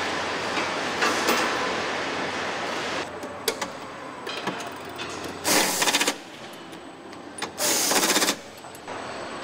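Steady assembly-plant din for about three seconds, then quieter, with two short rattling bursts of a power wrench tightening bolts on a truck cab, about five and a half and seven and a half seconds in.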